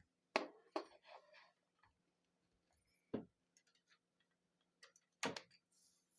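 A few separate sharp clicks and knocks as an IDE hard drive is connected to a computer through a USB adapter, the loudest about five seconds in, over a faint steady hum.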